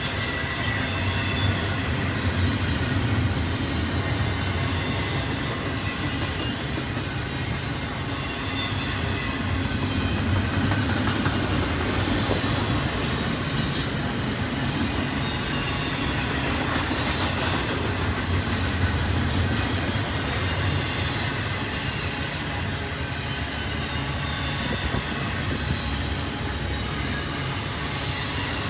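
Double-stack intermodal container train rolling past: a steady rumble and clatter of steel wheels on rail from the loaded well cars, with a faint high squeal at times.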